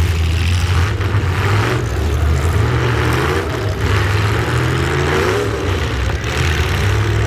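Truck engine running loud with a deep, steady rumble, its pitch rising and falling a little in the middle.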